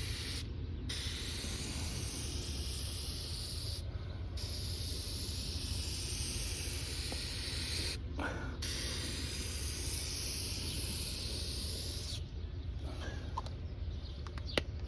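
Aerosol can of headlight clear coat spraying in a steady hiss, stopping briefly four times, about every four seconds, between overlapping passes across the lens.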